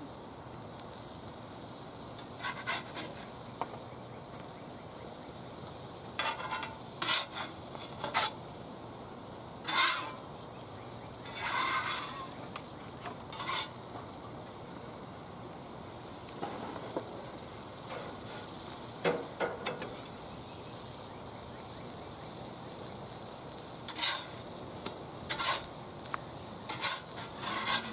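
Pancakes sizzling on a cast-iron griddle, with a metal spatula scraping and tapping against the iron in several short strokes as they are worked under and flipped.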